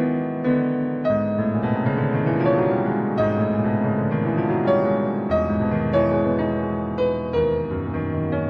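Slow, sad solo piano music: struck notes ringing out over sustained chords, with a lower bass note coming in about five seconds in.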